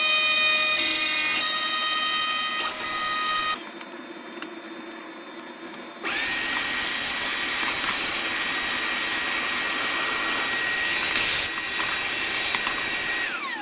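A Genmitsu desktop CNC router's spindle is whining steadily as it carves a brick pattern into a wooden chimney side. The noise drops quieter for a couple of seconds, a little over a third of the way in. Near the end the whine falls in pitch as the spindle spins down.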